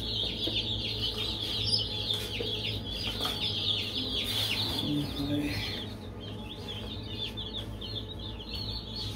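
Many baby chicks peeping at once: a continuous chorus of short, high, overlapping chirps, over a steady low hum.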